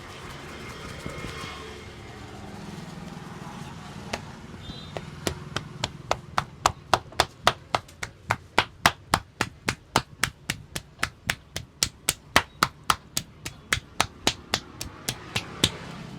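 Barber's hands slapping rhythmically on a customer's head in a percussive massage, about three sharp strikes a second, starting about five seconds in and running for about ten seconds.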